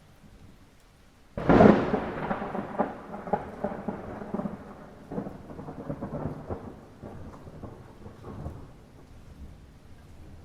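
Thunder over light rain: a sudden loud clap about a second and a half in, then a crackling rumble that fades over several seconds.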